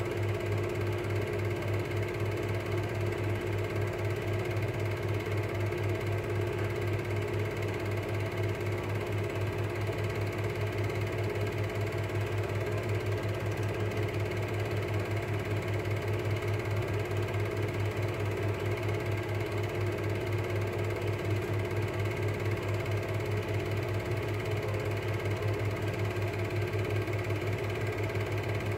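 Cine film projector running: a fast, even mechanical clatter over a steady motor hum that does not change.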